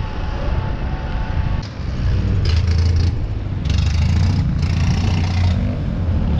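Motorcycle riding through town traffic: a steady low engine and wind rumble on the helmet-mounted microphone, growing louder about two and a half seconds in, with three stretches of rushing hiss.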